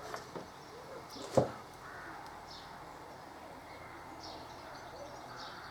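Faint birds chirping in the background, with one sharp click of a metal hand tool about a second and a half in.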